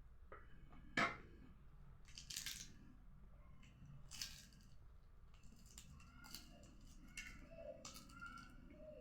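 Close-miked eating sounds of someone eating a meal of green grams, fried cabbage and chapati: a sharp click about a second in, a couple of short rustling bursts, then a run of small wet chewing and lip-smacking clicks.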